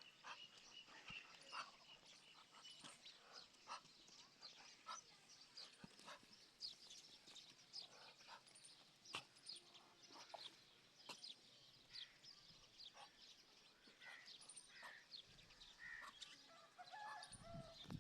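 Birds chirping, faint: many short, high calls overlapping in quick succession, with a lower call near the end.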